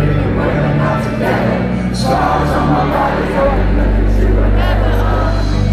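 Loud live rock concert music, a band with heavy bass under sung vocals, recorded from within the audience; the bass gets louder about three and a half seconds in.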